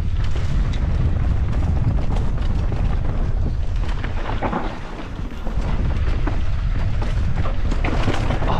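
Wind buffeting the camera microphone while a mountain bike is ridden fast down a dirt trail, with tyres rumbling over the ground and the bike rattling and knocking over bumps. The noise eases briefly about halfway through.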